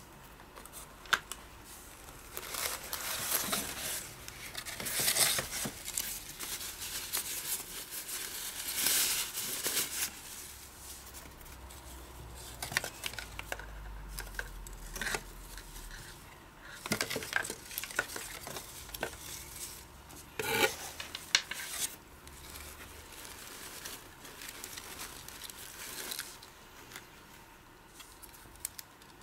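Plastic packaging crinkling and rustling as hands unpack a camera and its strap from a cardboard box, in irregular bursts, with a few sharp clicks and taps in the second half.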